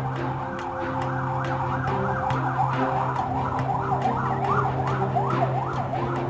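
Police escort siren in a fast yelp, its pitch sweeping up and down about three times a second, over steady low held tones.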